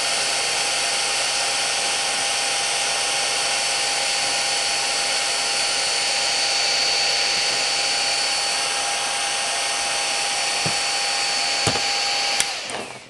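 Cooling fan of a high-power green laser setup running steadily with a constant whine. A couple of clicks come near the end, then the fan spins down with a falling pitch as the laser is switched off.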